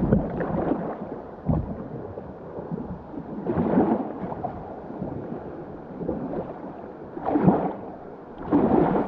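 Rushing floodwater in river rapids around a kayak: a muffled, rumbling wash of water, with several louder splashing surges.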